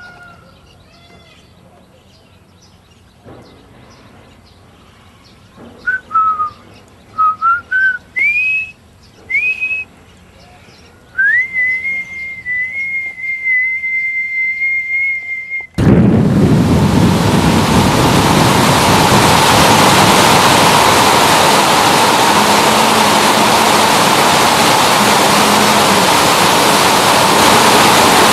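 A few short whistled notes, some sliding up, then one long steady whistle note held for about four seconds. About sixteen seconds in this cuts off and a loud, steady rushing noise takes over, like heavy rain or falling water.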